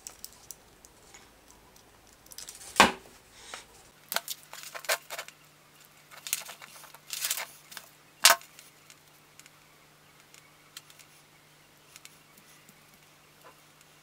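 JAKEMY JM-CT4-1 RJ45 crimping and cutting tool snapping and clicking in the hands as an Ethernet cable end is stripped and handled. There are sharp snaps about three and eight seconds in, with a run of lighter clicks between them, then faint clicks as the wires are fiddled with.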